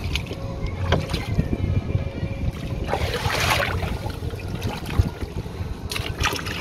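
Water lapping and splashing at the side of a small wooden outrigger boat as a whale shark feeds at the surface, with a louder splash about three seconds in and a sharp knock about five seconds in, over a low wind rumble on the microphone.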